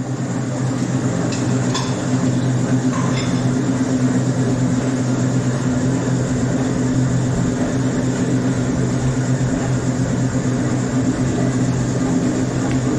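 A covered pan of pan-fried pork buns (shuijianbao) sizzling steadily over a gas burner, with a constant low hum under the hiss and a few faint ticks in the first few seconds.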